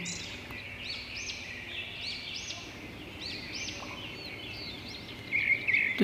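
Small birds chirping: a string of short, high, arching notes repeated about twice a second, with a lower chirp near the end.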